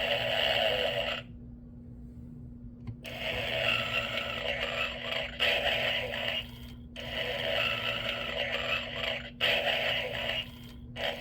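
Gemmy Snoring Santa animatronic toy playing Homer Simpson's recorded snoring through its small speaker: a run of long snores, each about one to two seconds. There is a lull of nearly two seconds after the first one, and a steady low hum underneath.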